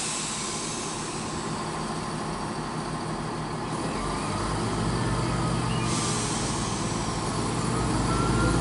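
Class 170 Turbostar diesel multiple unit running at the platform. About four seconds in, its underfloor diesel engines throttle up with a deeper, louder rumble as it starts to pull away.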